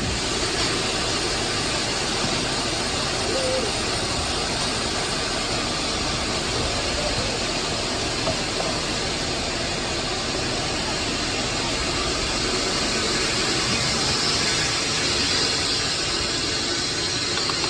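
Steady rushing of moving air, an even hiss-like noise that holds at one level throughout without pauses or rhythm.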